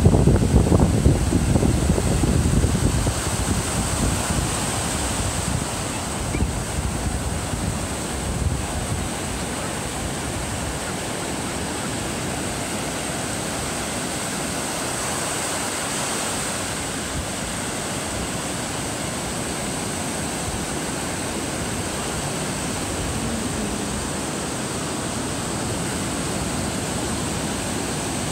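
Ocean surf washing up and back over a sandy beach, a steady rushing hiss. For the first several seconds wind gusts rumble on the microphone, then settle.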